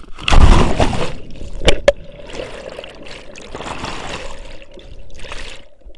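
A loud splash as the camera plunges into the water, then churning, bubbling water heard from under the surface, swelling twice. Two sharp knocks come about two seconds in.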